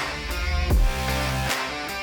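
Background music: electric guitar over a heavy bass line, with a strong drum hit about every 0.8 seconds.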